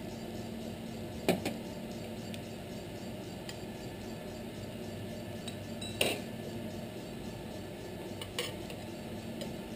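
A few sharp clinks of metal utensils against a plate as pasta is plated, the loudest about a second in and about six seconds in, with lighter ones near the end. Under them runs a steady low kitchen hum.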